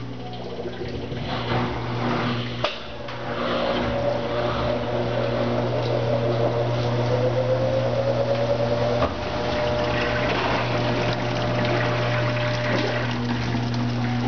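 Brastemp Ative 11 kg washing machine draining: the drain pump runs with a steady hum and rushing water. A faint whine rises slowly, then holds and stops near the end, with a sharp click about three seconds in and another around nine seconds.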